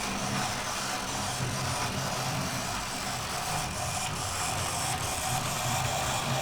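Small electric motor and metal wheels of an OO-gauge model steam locomotive running steadily along model track, hauling a short freight train, with a constant motor hum and wheel rumble.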